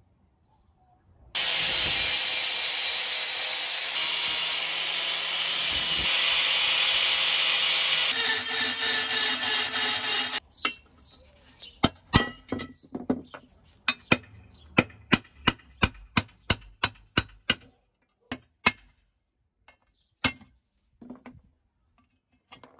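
Angle grinder with a flap disc running steadily against a rusty metal plate for about nine seconds, then stopping. Then a hammer strikes a punch held on a rivet in the plate: a rapid run of about twenty sharp metal blows, about three a second, then a few single knocks.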